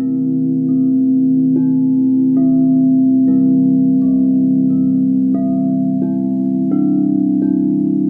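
White frosted crystal singing bowls struck one after another with a mallet, a new ringing note about every three-quarters of a second. Each note rings on over a sustained, slowly pulsing drone of the earlier bowls.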